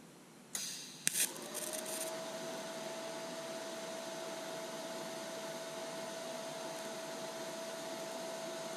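DC TIG welding arc from a Lincoln Electric Aspect 230 inverter welder on 14-gauge 304 stainless steel. About half a second in the arc starts with a brief crackle. It then settles into a steady hiss with a steady high whine that rises briefly into pitch as the arc settles.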